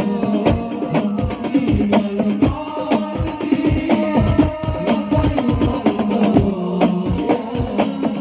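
Darbuka (goblet drum) played fast with both hands: a dense, even run of deep strokes and sharp rim strokes, the strongest about four a second, over a steady pitched accompaniment.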